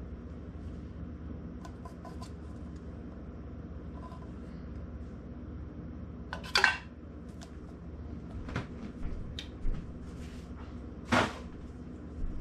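Metal spoon scraping and clinking against a tin can and a stainless steel saucepan as canned pasta is spooned out, with scattered light clicks and two louder sharp clinks, about halfway through and again near the end, over a steady low hum.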